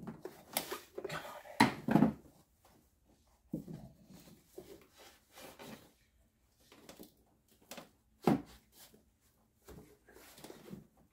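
Irregular clicks, knocks and rustles of hands and a small tool working at plastic fluid-line fittings on a car's brake master cylinder, the loudest knocks about two seconds in and again past eight seconds.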